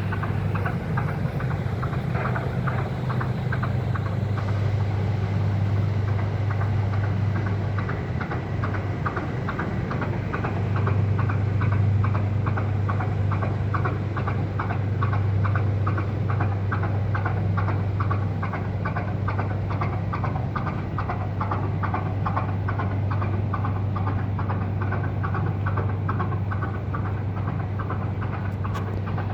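1954 Industrie 2VD6 80 hp two-cylinder marine diesel running steadily, a deep even hum under a regular, rapid knocking rhythm.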